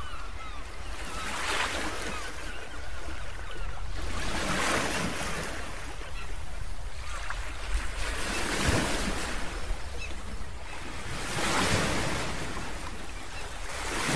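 Surf-like rushing noise that swells and fades every three to four seconds, like waves washing in and drawing back.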